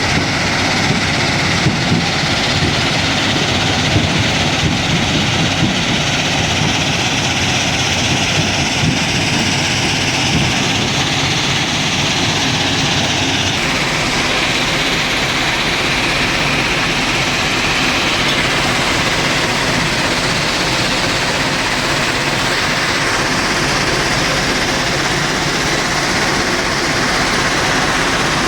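Heavy machinery running loudly and steadily, with a few light knocks in the first half. About halfway through, the sound changes abruptly to a different, smoother machine noise.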